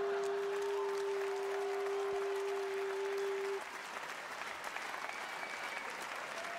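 A theatre audience applauding and cheering, with a few whistles. Over the applause a steady single-pitched tone holds and then cuts off suddenly about three and a half seconds in.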